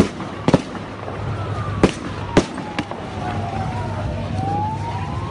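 About five sharp, gunshot-like bangs, uneven, in the first three seconds, over a siren slowly falling and rising in pitch and a steady low rumble. The bangs fit riot-control fire: tear-gas launchers and pellet shotguns.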